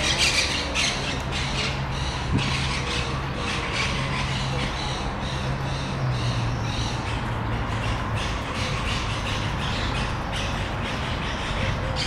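Birds calling in a rapid run of short, harsh calls, several a second, over a steady low hum.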